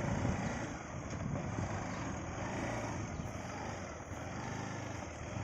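Steady low rumble and hiss of a motorcycle ride on a rough dirt road, engine and road noise with no distinct events.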